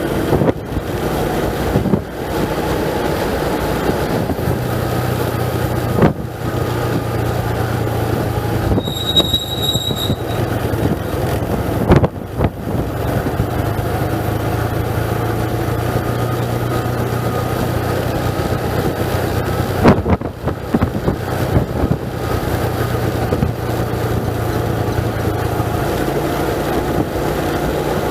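A vehicle's engine running steadily with road and wind noise, broken by a few sharp knocks. About nine seconds in there is a short high squeal.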